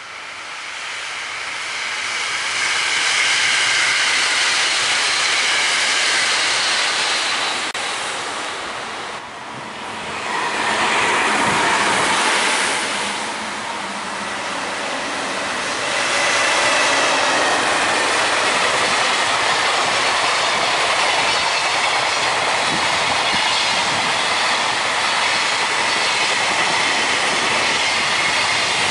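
A JR limited-express electric train passes at speed. After a short break about nine seconds in, a long JR container freight train rolls past, its wheels clattering over the rail joints with a thin, high wheel squeal.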